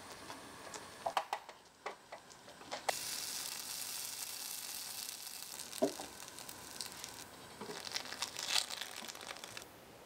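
Pancake batter sizzling in a miniature cast iron skillet: a steady sizzle that starts about three seconds in and stops suddenly near the end. Before it, a few light clicks and taps.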